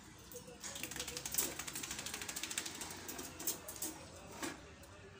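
Wire dog crate rattling: a fast, even run of metallic clicks lasting about three seconds, then dying away.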